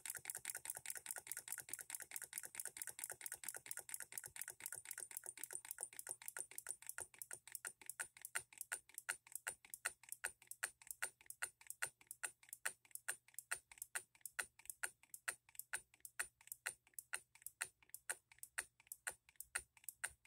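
Hand-built model hit-and-miss solenoid engine ticking steadily, its clicks slowing from about five a second to about three a second as the supply voltage is turned down to about 4.5 volts. At this low voltage it fires every stroke because the hit-and-miss lockout is not engaging, and it ends up just ticking over.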